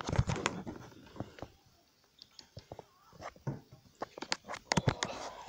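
Handling noise from a handheld camera being moved about and things being handled: a run of knocks, clicks and rustles. They are busiest at the start and again near the end, with a quieter gap in the middle.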